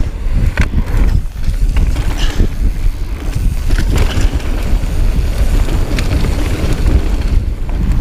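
Heavy wind noise buffeting a rider-mounted camera microphone during a mountain-bike descent, with a steady rumble and occasional sharp knocks and rattles from the bike over rough trail.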